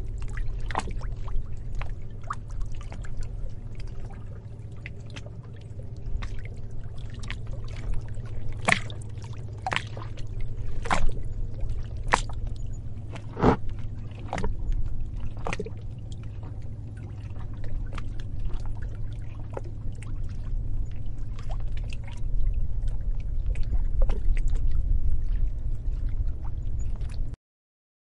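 Sea waves breaking close by: a steady low surf rumble with many sharp splashes and sloshes, swelling and easing in loudness. It cuts off abruptly near the end.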